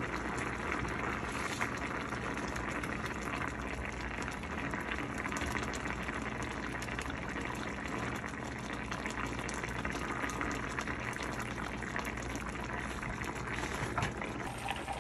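Thin fish curry boiling in a stainless steel pan: a steady bubbling and crackle from the simmering broth, with a spatula stirring through it partway through.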